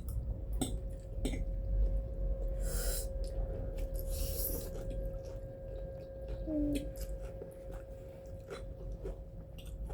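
People eating noodles at a table: scattered light clicks of cutlery on plates, chewing and a couple of brief slurps, over a faint steady hum.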